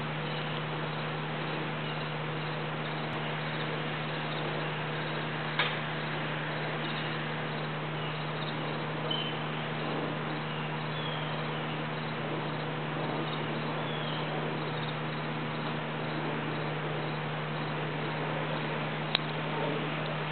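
Steady outdoor background hiss with a low hum, broken by a few faint short chirps and two sharp clicks, one about six seconds in and one near the end.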